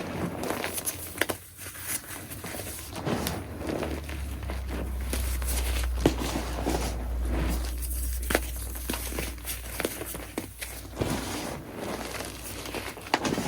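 Chunks of gym chalk being crushed: a dense, irregular run of soft crunches and crackles, with a low rumble underneath from about four to ten seconds in.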